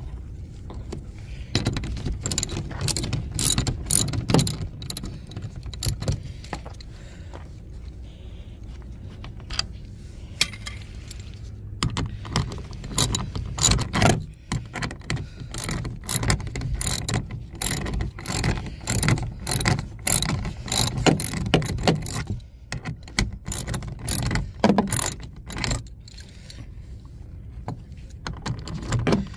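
Hand ratchet with a 10 mm socket clicking in rapid runs with short pauses, as the window regulator motor's mounting bolts are backed out.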